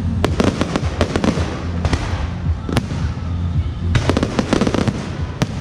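Aerial fireworks bursting overhead: dense volleys of sharp crackling reports about a second in and again around four seconds in, with single louder bangs between.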